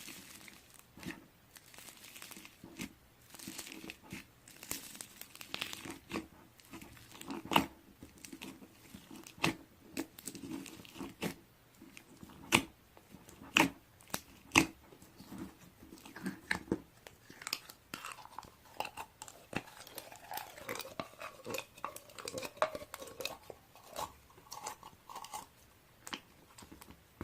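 Irregular crinkling and crunching, a run of sharp crackles and clicks, with a faint wavering tone in the second half.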